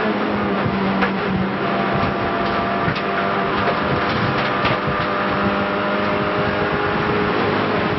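Renault Clio race car's engine running at high, fairly steady revs at speed, heard from inside the cabin over road and wind noise, with a few sharp clicks now and then.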